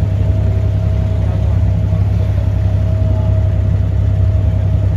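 Engine of a small passenger boat running steadily, a loud low drone with a thin steady whine above it.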